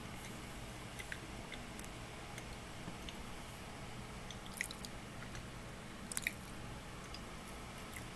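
A few faint crackles and clicks over a steady low hiss, from a chocolate muffin in its paper liner being handled and eaten. The loudest clicks come in two small clusters, one past the middle and one a little later.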